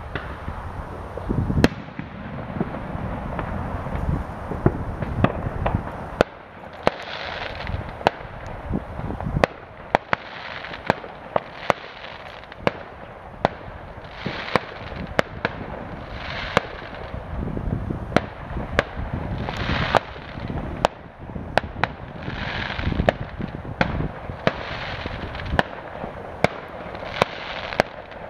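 Fireworks going off: many sharp bangs and pops at irregular intervals, some in quick succession, over a continuous rumble of more distant explosions.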